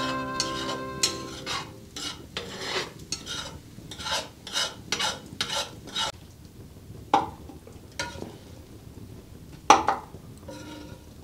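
Metal spoon stirring and scraping eggs, fat back and onions around a cast-iron skillet, about two strokes a second, then a few separate scrapes and clinks as the food is pushed out onto a wooden plate, with one sharper clank near the end.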